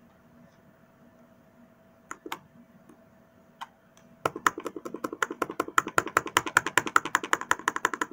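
Typing on a keyboard: a few scattered key clicks, then from about halfway in a fast, steady run of keystrokes, about nine a second.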